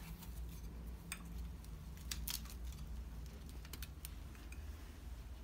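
Faint, scattered light clicks and taps of porcelain tea-set pieces being handled in their satin-lined gift box, over a low steady hum.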